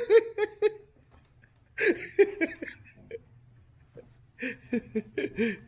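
People laughing in short chuckling bouts: one just after the start, another about two seconds in, and a third near the end, with quiet gaps between.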